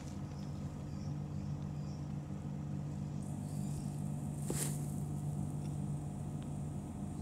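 Cat purring steadily and low while kittens nurse, with a short rustle about four and a half seconds in.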